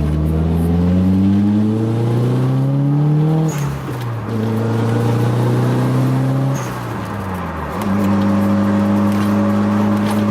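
Nissan SR20DET turbocharged four-cylinder running under way as the car pulls through the gears. Its note climbs, drops sharply about three and a half seconds in at a shift, climbs again, falls away around seven seconds in, then holds steady.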